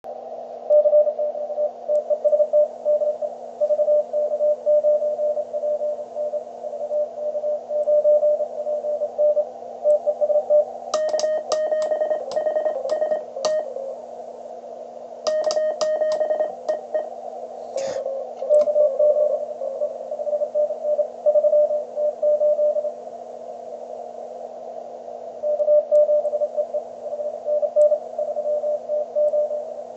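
Morse code tones from a Hendricks PFR-3 CW transceiver over a steady hum and receiver hiss: a 20-metre CW contact, keyed on and off. Two short stretches a little before halfway sound sharper, with clicks on each element.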